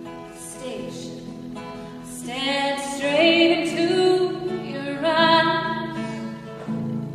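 A woman singing a slow original song with instrumental accompaniment. The accompaniment holds quiet sustained notes at first. About two seconds in, her voice comes in louder with long held, wavering notes, then eases off near the end.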